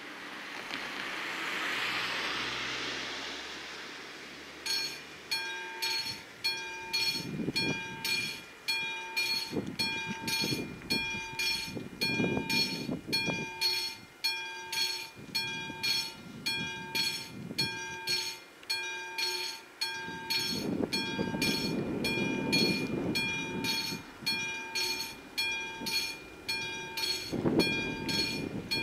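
A car drives over the crossing, then about five seconds in a classic level-crossing warning bell of an AŽD 71 crossing starts ringing. The bell is struck steadily, a little under two strokes a second, warning that a train is approaching.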